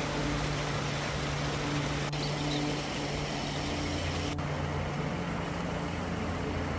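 Shallow mountain stream rushing over rocks: a steady hiss and wash of fast water, with a low steady hum underneath.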